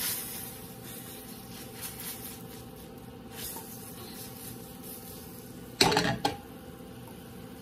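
Broccolini and white wine sizzling softly in a stainless sauté pan as it is tossed over a gas burner, then the pan is set back down on the stove grate with a metal clank about six seconds in, the loudest sound.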